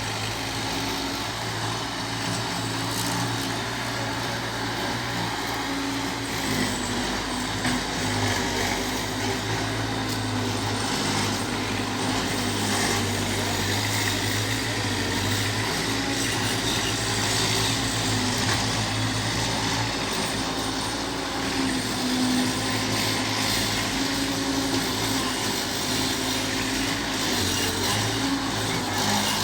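Bobcat skid steer loader's diesel engine running steadily at work, its note dipping and rising a few times as the machine is worked.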